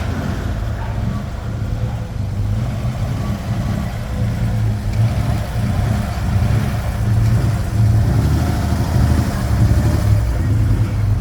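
Chevrolet Opala inline-six engine running with a deep, steady rumble, getting somewhat louder over the second half.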